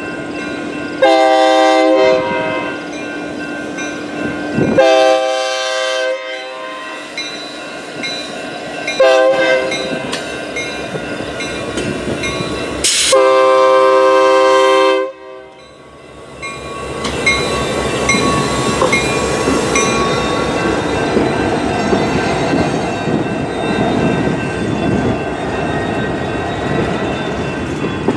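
Union Pacific diesel locomotive's air horn sounding the grade-crossing signal: two long blasts, a short one and a final long one. Then freight cars rolling through the crossing, wheels clicking over the rail joints.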